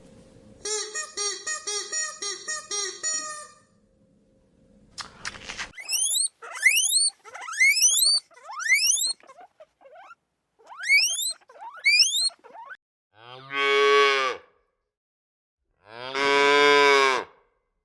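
Cow mooing twice near the end, two long calls about a second each. Earlier come a quick run of short pitched calls and a series of rising chirps.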